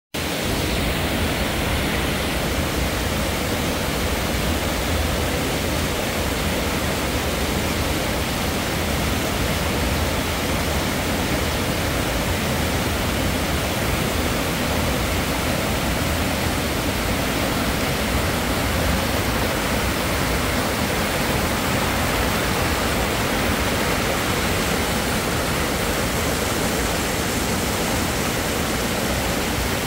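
Stream rushing over rocks and small cascades in a narrow gorge: a loud, steady rush of water that never lets up.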